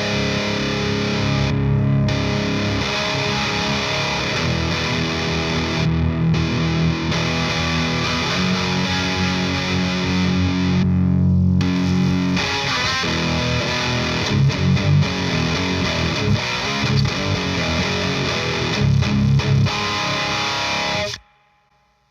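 Electric guitar played through a Klon-style overdrive pedal, riffs and held chords in a mildly overdriven tone. The playing stops abruptly about a second before the end.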